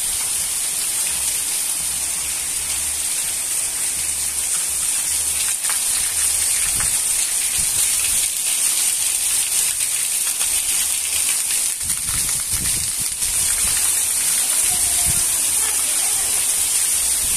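Heavy rain falling steadily onto wet pavement and a courtyard: a loud, even hiss of the downpour.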